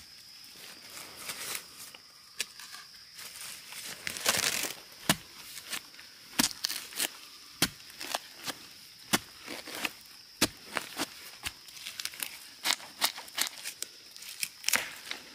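Digging out a bamboo shoot with a long-handled spade: irregular scrapes and knocks of the blade in soil and crackling of dry bamboo leaves, with a longer scraping burst about four seconds in. A faint steady high tone runs behind.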